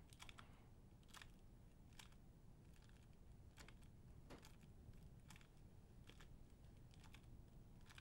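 Faint clicking of a 3x3 Rubik's-type speedcube as its plastic layers are turned by hand. About a dozen separate turns are heard, three repetitions of the four-move R U R' U' sequence.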